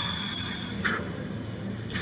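Soft rubbing and rustling of hands against skin and fabric during a hands-on neck treatment, loudest in the first half-second, over a low steady hum.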